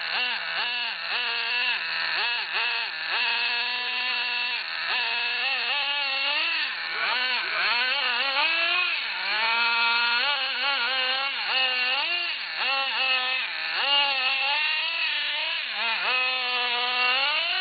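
Small two-stroke engine of a gas-powered RC car revving up and down over and over, its pitch rising and falling every second or so, with a long steep rise near the end.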